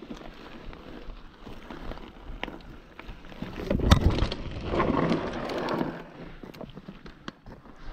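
Mountain bike rolling fast down a dirt singletrack: tyres crunching over the loose surface, with sharp clicks and rattles from the bike over bumps and wind on the microphone. It gets louder from about three and a half seconds in until about six seconds in.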